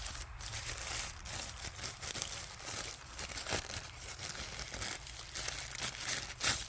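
Plastic packaging crinkling and rustling steadily, with many small crackles, as the parts of a TPMS kit are unwrapped and handled.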